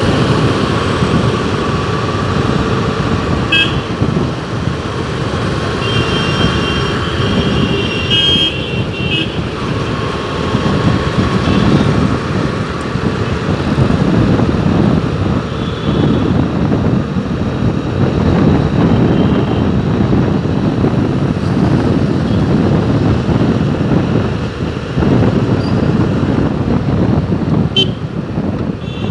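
Steady road traffic noise with a dense rumble of passing vehicles, and a few short vehicle horn beeps: one about three seconds in, a cluster from about six to nine seconds, and one near the end.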